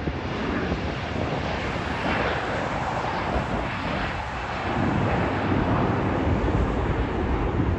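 Jet airliner engines heard from the airport perimeter: a steady, broad rushing noise over a deep rumble that grows a little louder in the second half.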